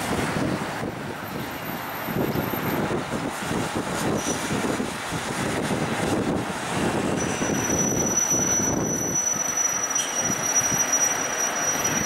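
City street traffic heard from above: a continuous rumbling mix of vehicle engines and road noise that swells and fades. A thin, steady high-pitched whine joins about seven seconds in and holds.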